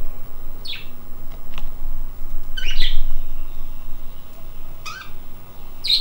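Budgerigars chirping: four short, harsh, high calls spread a second or two apart, the one near the middle the longest and loudest.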